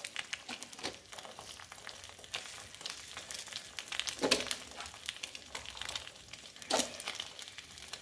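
An egg frying in a stone-coated frying pan over a gas flame: a steady sizzle with many scattered crackling pops, a few of them louder.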